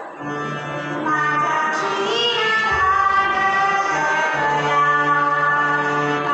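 A young woman singing a Marathi abhang (devotional song) with long held, gliding notes, accompanied by a harmonium's steady sustained tones.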